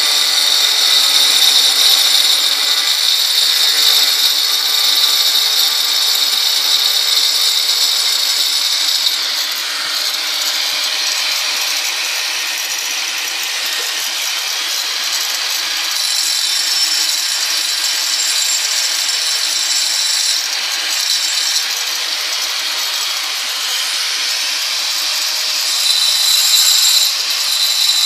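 Angle grinder with a 125 mm diamond blade cutting a notch into a granite slab: the motor runs continuously with a steady high whine under the grinding noise. The sound changes and drops slightly in level about nine seconds in as the cut goes on.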